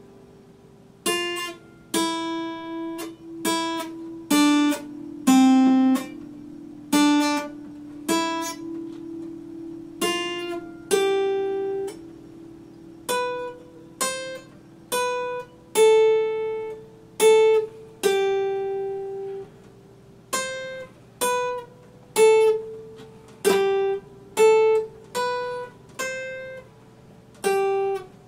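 Acoustic guitar played fingerstyle: a slow melody of single plucked notes, about one a second, each left to ring out. Over the first half a lower note keeps sounding beneath the melody.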